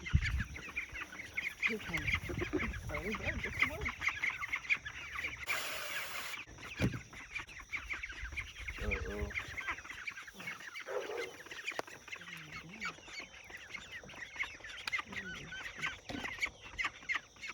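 A flock of chickens clucking, with many short high chirps packed close together throughout. A brief burst of hiss-like noise comes about six seconds in.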